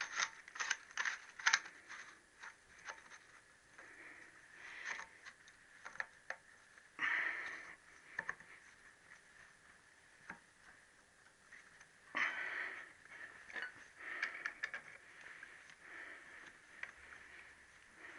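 Faint metallic clicks and scrapes from a pinion puller being wound on a Triumph T120R's crankshaft timing pinion as the pinion eases off. A quick run of clicks comes at the start, then sparse clicks, with two louder rustles about seven and twelve seconds in.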